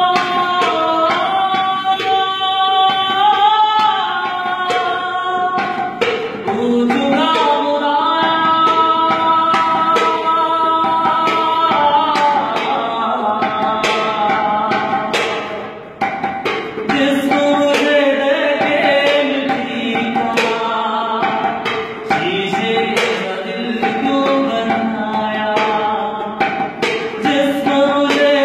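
A man singing a slow Hindi song with long, bending held notes, keeping time with his hands on empty metal paint tins played like a tabla. The sharp strokes of the tins come under the voice, which breaks off briefly about halfway through.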